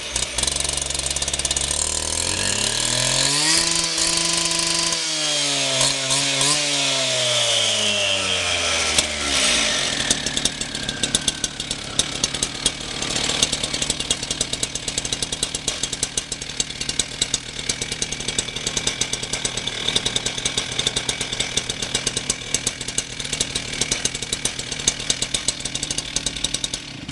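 Stihl TS 410 cut-off saw's two-stroke engine revved up about two seconds in, held high for a few seconds, then eased back down to a steady, rapid idle.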